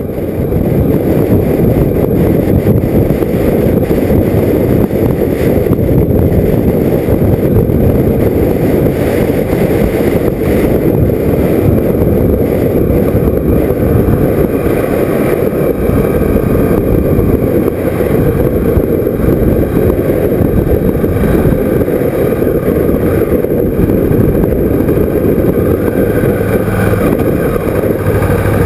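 Wind rushing over the microphone mixed with the KTM motorcycle's engine while riding at road speed. Near the end the bike slows and a steady engine note comes through more clearly.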